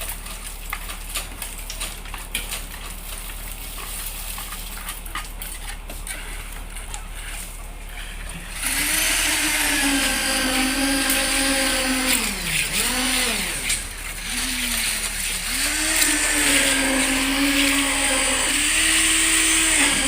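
Crackly hiss with scattered clicks, then about eight seconds in a small engine comes in loud, running at a steady pitch that sags twice under load and recovers.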